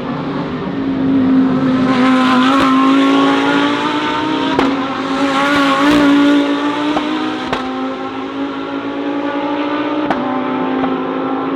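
Race car engines running at high revs as several cars pass in a pack, swelling louder twice, with several sharp cracks among them.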